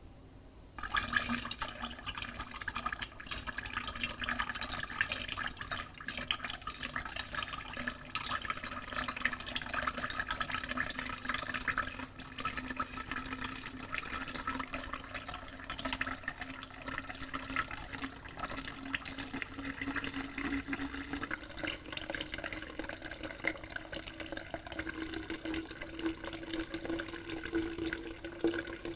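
A thin stream of cocktail mix poured slowly from a glass jug into a glass carafe of milk, trickling and splashing steadily from about a second in. A faint low tone rises slowly in pitch as the carafe fills. The slow pour lets the milk curdle gradually for milk clarification.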